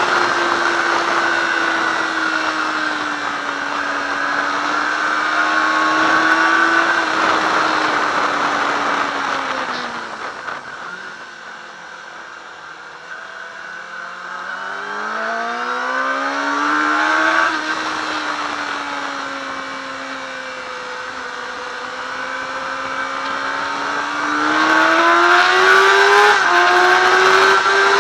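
Yamaha YZF-R6's inline-four engine ridden hard, under loud wind rush: the revs fall and the engine goes quieter about ten seconds in as the bike slows for a corner, then climb in rising sweeps through the gears, settle lower for a few seconds, and rise again in steps toward the end.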